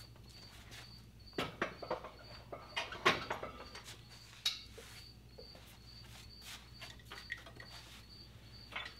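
Clunks and knocks of a heavy Warn winch being handled and set onto its mounting bracket on a compact tractor, sharpest about one and a half, three and four and a half seconds in. A faint high chirp repeats steadily in the background.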